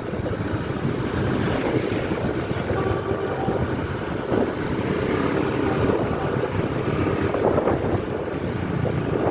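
Road traffic noise, a passing bus's engine and tyres, with wind buffeting the microphone.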